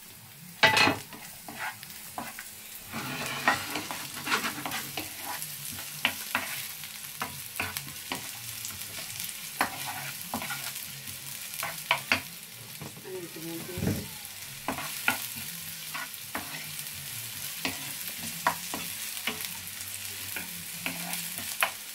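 Chopped garlic and onion sizzling in oil in a non-stick frying pan, with a spatula scraping and tapping against the pan as it stirs them. A sharp knock of the spatula comes just under a second in.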